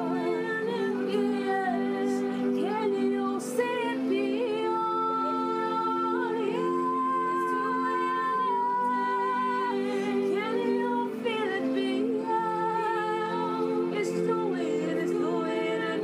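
Worship music: a woman's voice singing long held notes with slides and vibrato over steady sustained chords.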